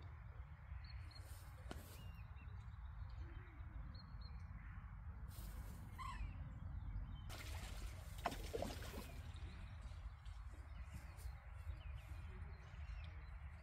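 Outdoor lakeside background: a steady low rumble with a few faint bird chirps, and brief rustling near the middle.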